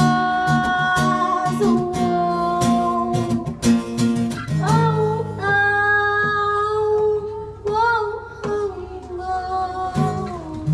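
A woman singing into a microphone over a strummed acoustic guitar, with long held notes that slide between pitches; the strumming thins out in the second half.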